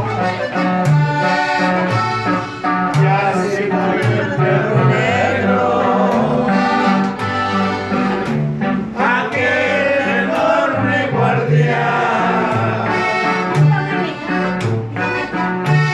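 Live norteño band music: an upright bass plays a steady alternating two-beat bass line under guitar and accordion, with a man's voice singing over them in places.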